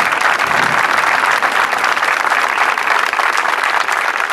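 Audience applauding: a dense, steady round of applause.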